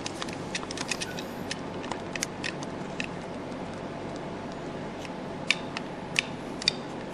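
Small sharp clicks and scrapes of a knife blade prying the contact chip off a plastic HP ink cartridge, many in quick succession at first, then a few single clicks near the end, over a steady low background hum.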